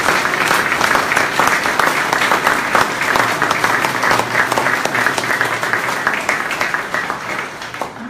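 Audience applauding, many hands clapping together in a dense patter that tapers off near the end.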